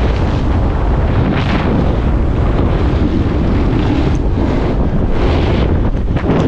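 Wind buffeting the microphone: a loud, steady rumble with a few brief higher swishes, about one and a half seconds in and again past the five-second mark.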